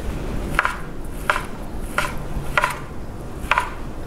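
Santoku knife chopping cooked chicken breast into cubes, the blade knocking on the cutting board about five times at an unhurried pace, roughly one cut every 0.7 seconds.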